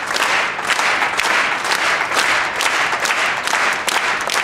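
Audience applauding: many people clapping at once in a dense, steady mass of claps.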